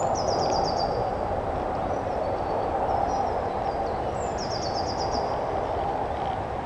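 Steady outdoor rumble like distant traffic, with a small bird twice giving a short, fast run of high notes, once at the start and again about four seconds in.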